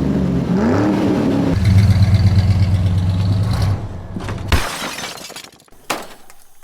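An engine revving in two rising sweeps, then holding a steady speed for about two seconds before dropping away, followed by a short hiss and a couple of brief noises.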